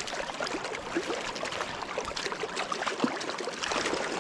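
River water running and splashing close by, with many small irregular splashes and trickles.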